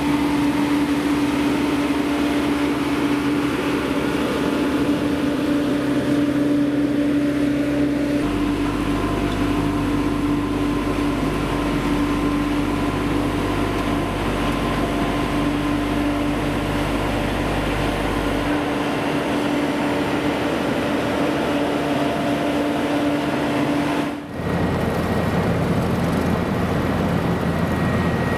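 Steady motor-vehicle engine and road noise. The low hum changes abruptly about eight seconds in and again near the middle, with a brief dip near the end.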